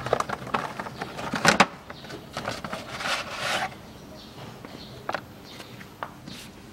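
A new cabin air filter being slid out of its cardboard box and handled: a sharp knock about one and a half seconds in, a longer rustle of cardboard and filter around three seconds in, and a few light clicks.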